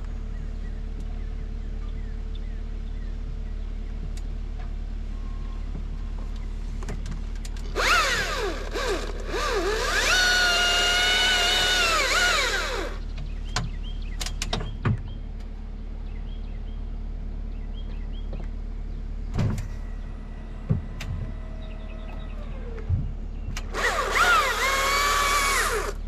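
Chainsaw idling, then revved to full speed twice, for about five seconds starting about eight seconds in and again briefly near the end, each time rising in pitch, holding and dropping back to idle as the bar scores a shallow guide cut into the oak trunk. A few light knocks fall between the cuts.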